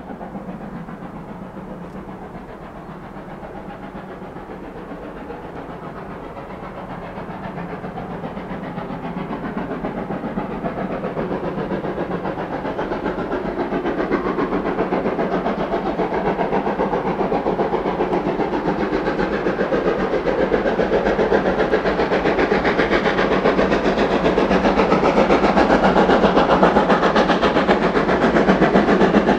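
Steam locomotive working under power, its exhaust beats coming in quick succession with steam hiss, growing steadily louder.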